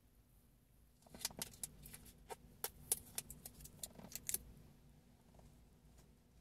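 Plastic containers being handled: a dense run of sharp clicks and crackles for about three seconds, starting about a second in, then stopping.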